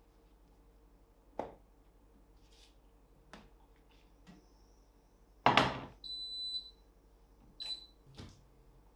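Gorenje induction hob's touch controls beeping: a high beep about six seconds in, lasting under a second, and a shorter one about a second and a half later. Just before the first beep comes a loud knock, with a few soft knocks and clicks of handling around it.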